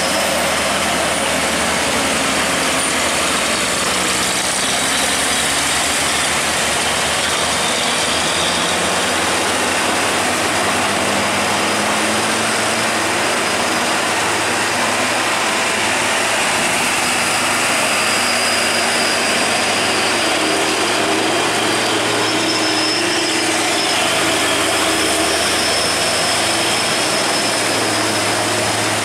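Heavy truck engines, among them a fuel tanker's, running at low revs as the trucks crawl through a steep hairpin bend, over the steady hiss of heavy rain.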